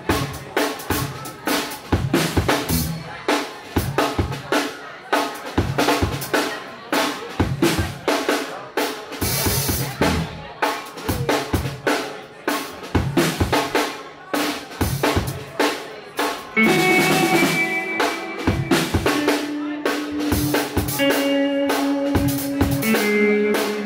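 Live jazz-fusion band playing, with the drum kit loudest: busy, hard-hit drumming with bass drum and snare. About two-thirds of the way in, the band comes in with long held notes over the drums.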